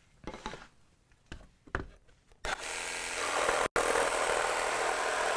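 A few light knocks, then a Milwaukee M12 2445-20 cordless jigsaw starts about halfway in and runs steadily, its T-shank blade cutting through a cedar board.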